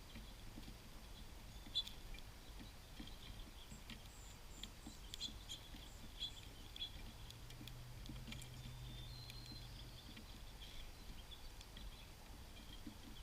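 Small songbirds at a backyard seed feeder: scattered faint, short chips and ticks, with a brief thin high note about two-thirds of the way through.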